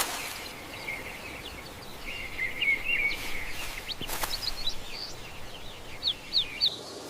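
Small birds chirping and warbling in short high calls over a steady background hiss, with one sharp click about four seconds in.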